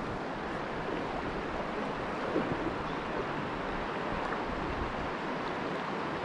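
Steady rush of a shallow river running over cobbles.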